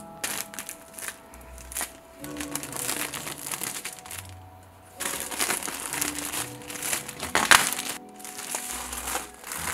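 Clear plastic shrink-wrap crinkling and rustling in bursts as it is handled and peeled off a cardboard product box, with one loud sharp crackle near the end. Background music plays underneath.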